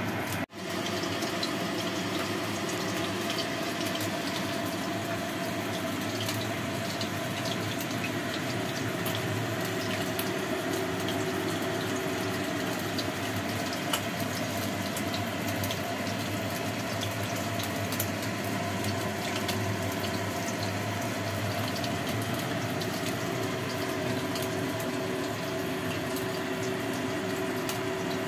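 Salmon head frying in hot oil in a wok: a steady sizzle with scattered spitting crackles, over a faint steady hum.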